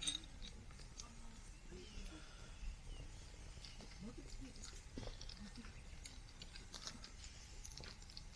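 Campfire crackling faintly: scattered, irregular small cracks and ticks.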